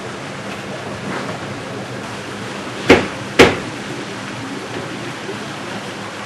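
Wood being chopped or split: two sharp blows about half a second apart, over a steady rushing background noise.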